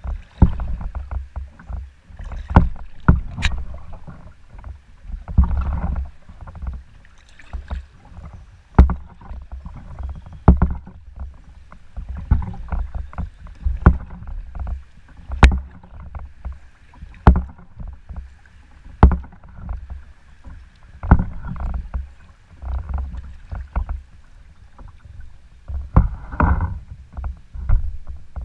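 Canoe being paddled: a sharp knock of the paddle about every two seconds, some with the swish of the blade through the water, over a steady low rumble.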